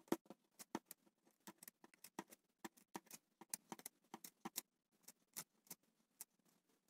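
Scissors cutting through polar fleece fabric: a run of quiet, irregular snips, about three a second.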